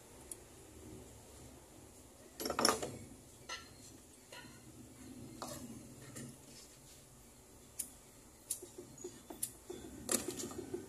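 Metal jeweler's tools clinking and tapping on a workbench: scattered sharp clicks and knocks, the loudest pair about two and a half seconds in. Near the end a fast, even pulsing begins.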